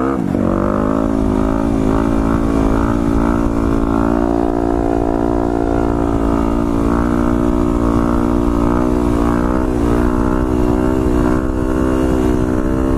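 Yamaha WR250X's single-cylinder four-stroke engine running at a steady cruising speed, its pitch holding nearly constant with small rises and dips.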